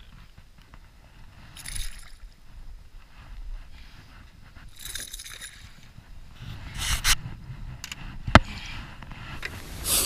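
Hooked fish splashing at the water's surface beside a canoe, in short bursts, with water sloshing against the hull and gear scraping in the boat. A single sharp knock about eight seconds in.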